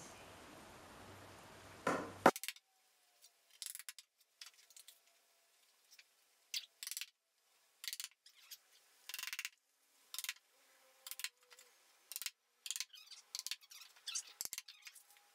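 Claw hammer lightly tapping small nails into thin wooden strips, with short, sharp metallic clinks and ticks at irregular intervals and one harder blow about two seconds in.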